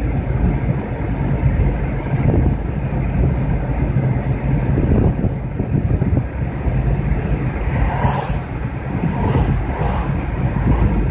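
Steady road and engine rumble heard from inside a car's cabin at highway speed, with oncoming vehicles swishing past near the end.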